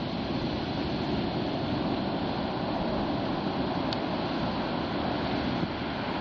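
Atlantic Ocean surf: good-size waves breaking on the beach, heard as a steady, even rush of noise.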